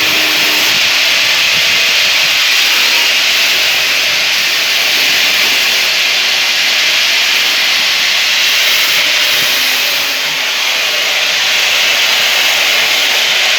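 A 24-inch band sawmill's blade sawing through wood, a loud steady hiss that dips briefly about ten seconds in.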